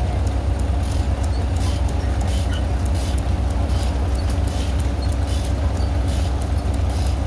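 Belt-driven sawmill running: a steady low drone from the engine and flat-belt drive, with a light high hiss recurring about twice a second.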